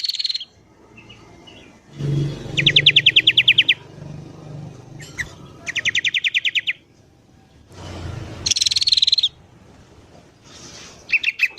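Bulbul calls: two rapid trills of evenly spaced notes, each about a second long, then a higher chattering call and a few short notes near the end.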